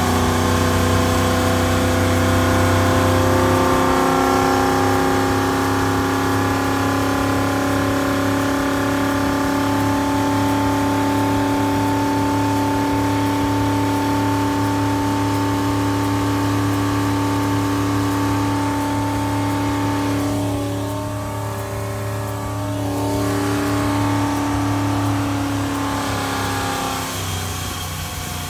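Freshly rebuilt 2007 MerCruiser 8.1 Horizon, a fuel-injected big-block V8, running at a steady speed with an even drone. The sound dips briefly about twenty seconds in.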